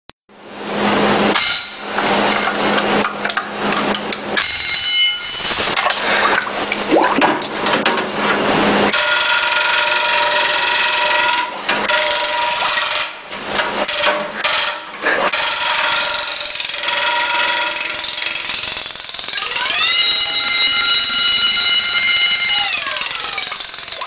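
Wind-up mechanical alarm bell ringing continuously as a rapid clatter while held under water in a sink. About 9 seconds in the ringing turns into a clearer steady tone, and near the end its pitch bends up and then back down.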